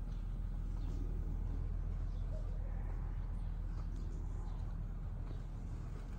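Workshop ambience: a steady low machine hum, with faint, scattered bird chirps over it.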